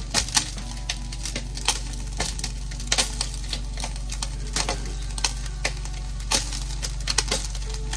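Chicken wings deep-frying in a pot of hot oil, crackling and popping irregularly over a steady low hum.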